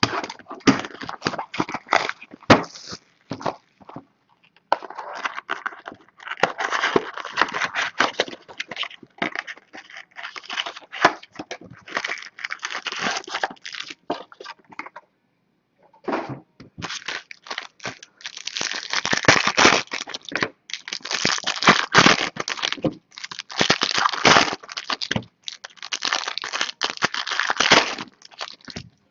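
Foil wrappers of baseball card packs crinkling and tearing as the packs are ripped open, mixed with cardboard box flaps being handled. The crackling runs in dense spells, with a pause of about a second halfway through.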